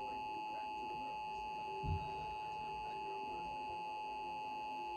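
Steady single-pitch emergency alert tone from NOAA Weather Radio: the alarm tone that sounds before a warning message. A short low thump comes about two seconds in.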